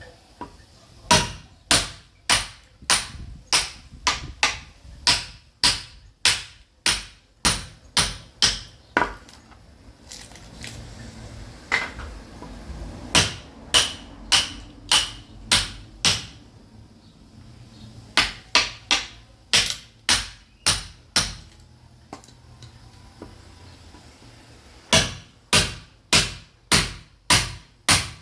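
Sledgehammer striking a chisel to split caviúna firewood: sharp, ringing blows about two a second, in runs of several blows with pauses of a few seconds between them.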